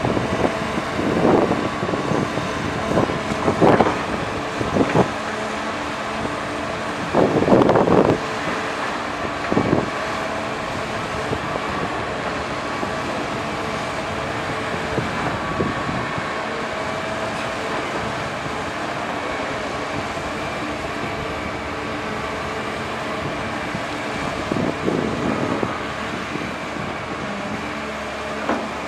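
Caterpillar 320D hydraulic excavator's diesel engine running steadily under its hydraulic load as the boom and bucket dig and swing. Its note swells briefly several times in the first ten seconds and once more near the end.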